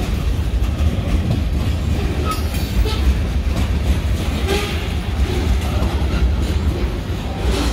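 Freight train hopper cars rolling past at close range: a steady low rumble of steel wheels on the rails, broken by a few sharp clicks and clunks from the wheels.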